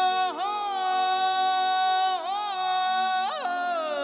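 A Marathi gavlan (devotional song) being sung: the singer holds one long, high note with brief dips in pitch about a third of a second in and again around two seconds, then a quick flourish up and back near the end. Sustained instrumental notes accompany it underneath.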